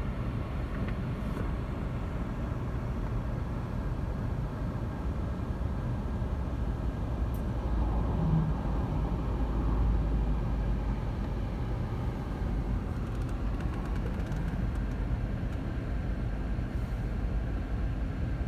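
Steady road and engine rumble inside a moving car's cabin, swelling slightly about eight seconds in.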